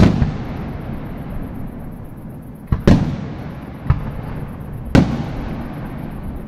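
Aerial firework shells bursting. There is a loud bang at the very start, a double bang about three seconds in, a smaller bang a second later and another loud bang at about five seconds, each dying away in a low rumble of echo.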